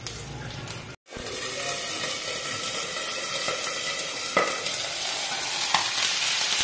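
Garlic, whole dried red chillies, mustard seeds and cumin sizzling in hot oil in a frying pan, a spice tempering for dal. The sound drops out briefly about a second in, then the sizzle runs on steadily with a few light knocks.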